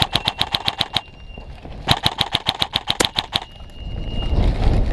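Umbrella Armory LVOA-S airsoft electric rifle firing two full-auto bursts, about ten shots a second: one of about a second, then after a short pause a second of about a second and a half. A low rumble builds near the end.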